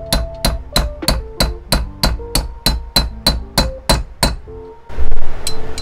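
Small hammer tapping a driver to seat a new valve stem seal on the valve guide of a Yamaha Raptor 250 cylinder head: quick light metallic taps, about three a second, each with a short ring. The tapping stops about four seconds in, and a louder steady noise follows near the end.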